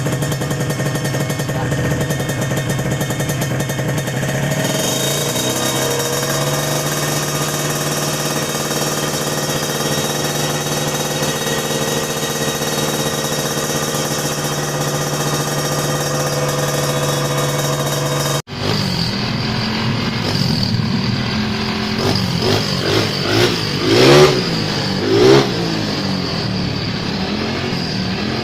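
Bored-up motorcycle engine idling steadily, then revved in a few short throttle blips that rise and fall in pitch, the loudest two near the end.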